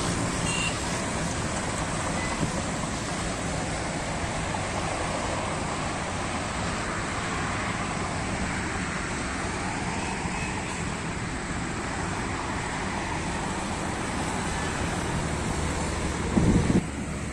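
Steady traffic and road noise from cars and trucks on a busy road, an even rushing sound. A brief louder low rumble comes near the end.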